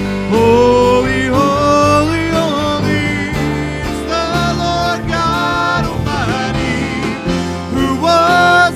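Live church worship band: singers leading a congregational worship song over acoustic guitar and keyboard, with the sung melody changing every second or so.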